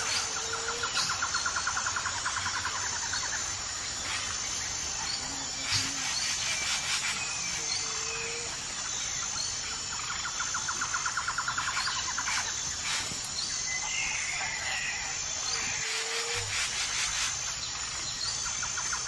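Rural outdoor ambience: birds calling, with short single notes every few seconds, a fast pulsed trill that comes three times and a warbled chirp about two-thirds through, over a steady high insect drone. A few light knocks come in between.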